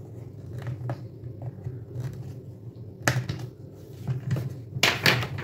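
Hard plastic toy shark and its clear plastic fin being handled and pushed into place: scattered clicks and knocks, the loudest a brief scraping burst near the end, over a steady low hum.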